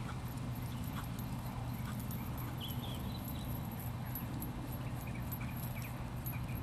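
Hoofbeats of a Missouri Fox Trotter mare fox-trotting on grass under a rider, over a steady low hum.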